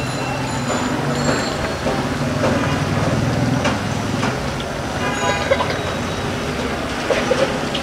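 Busy street traffic running steadily, with a brief horn-like toot about five seconds in.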